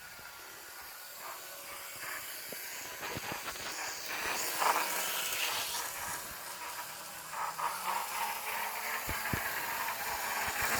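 Model BB 67001 locomotive running on its track, its motor and wheels making a steady hissing whir with scattered clicks, louder from about four seconds in as it speeds up.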